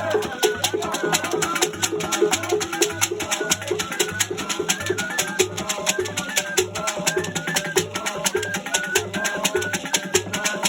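Igbo ogene music: fast, steady percussion with rattles and a drum under a repeating pitched pattern, with a low beat about twice a second.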